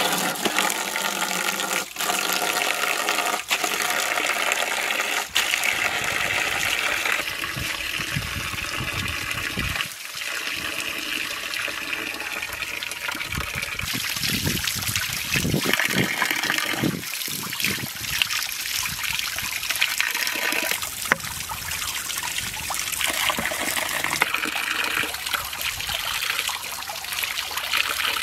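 Water running steadily from a hose, pouring into a steel bowl of water and splashing over hands and small fish as they are rinsed under the stream.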